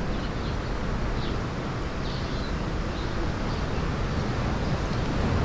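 Steady outdoor background noise, a low rumble under a soft hiss, with a few faint high chirps.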